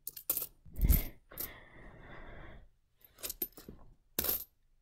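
US one-cent coins (pennies) clinking as a handful is sorted and set down on carpet: a scatter of short clicks, a soft thump about a second in, and a brief rustle of coins and cotton glove around two seconds in.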